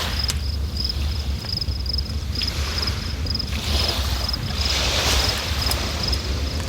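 River water rushing steadily, hiss swelling and easing in waves over a deep rumble. A short high chirp, likely an insect, repeats about twice a second.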